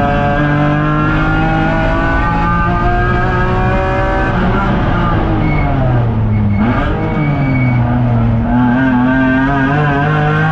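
BMW S54 inline-six engine of an E36 M3, heard from inside the stripped cabin, pulling with slowly rising revs. About five seconds in the revs fall as the car slows off the throttle, with a brief sharp rise near seven seconds, before the engine pulls and climbs again.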